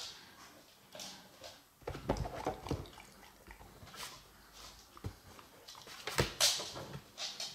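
Beagles' paws and claws tapping, knocking and scraping on a tabletop, a few sharp knocks among them, loudest in a cluster about six seconds in.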